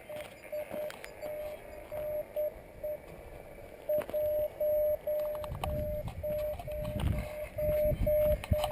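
Morse code (CW) from the Yaesu FT-817ND HF transceiver's speaker: a single steady beep keyed on and off in short and long elements, dots and dashes. A few faint clicks and a low rumble come in under it in the second half.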